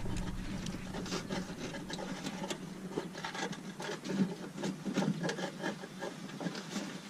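Brake-light wires being handled and pushed through a metal grommet in a car's body: irregular rubbing and scraping with small clicks.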